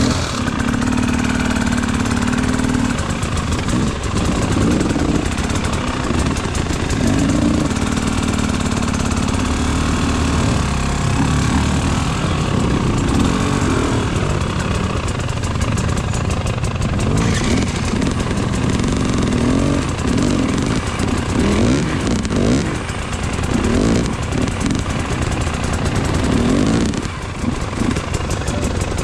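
Two-stroke enduro motorcycle engine, a GasGas EC 300 TBI, being ridden under changing throttle, its pitch repeatedly rising and falling as it revs up and backs off.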